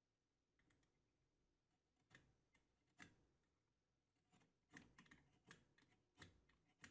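Faint, sharp clicks and short scrapes of a knife blade paring a wooden dowel flush with a plywood surface. There are about ten separate strokes, irregularly spaced, beginning about two seconds in.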